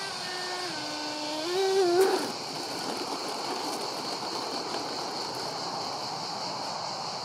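Twin electric ducted fans of a Freewing Su-35 RC jet whining with a single pitched tone, dipping then rising and wavering as the throttle is worked on landing; about two seconds in the whine swells and then stops abruptly, leaving a steady rushing noise as the jet rolls out. The fans spin 5-blade rotors on 2600kv motors at 6S, on cheap shaft adapters with detached mounting pads, which the owner blames for a vibrating screech.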